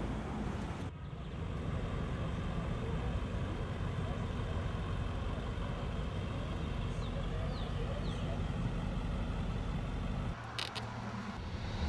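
City street traffic: a steady low rumble of car engines and tyres going by.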